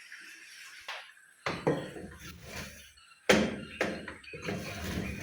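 Thick ugali being stirred and pressed with a wooden cooking stick in a pot: a handful of sudden dull knocks and thumps, starting about one and a half seconds in, after a quiet stretch.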